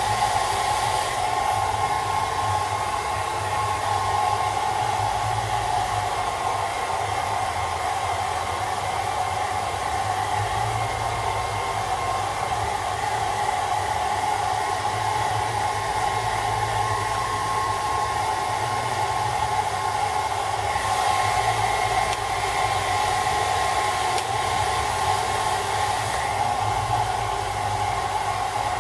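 Handheld hairdryer running steadily, a continuous whirring blow of air with a faint steady whine, its hiss shifting slightly a few times as it moves.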